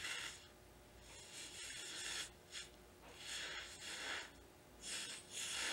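Breath hissing through a jeweler's mouth blowpipe into a lamp flame, in several blows up to about a second long with short pauses for breath between them, heating a jump ring on a charcoal block so the solder flows.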